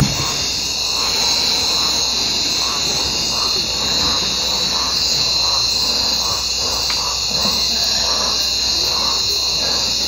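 Rainforest insect chorus at the water's edge: a dense, steady, high-pitched shrill drone, with a fainter call pulsing about twice a second underneath.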